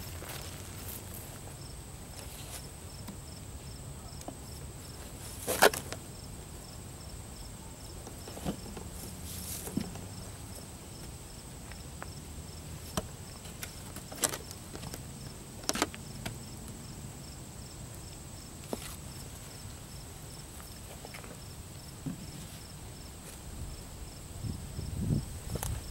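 Insects chirping steadily in a faint, even pulse, with a few scattered sharp knocks and some footsteps near the end.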